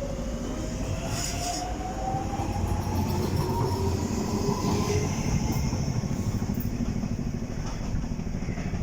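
Docklands Light Railway train pulling away. Its traction motors give a steadily rising whine for the first five seconds or so, over a steady rumble of the wheels on the track.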